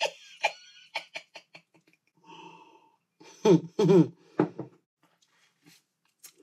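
A woman's soft laughter: short breathy puffs at first, then three louder voiced laughs about halfway through.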